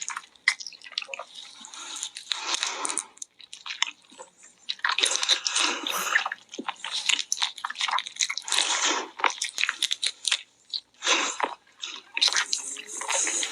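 Close-miked wet chewing and slurping, in irregular bursts of squishing and crunching as a person eats.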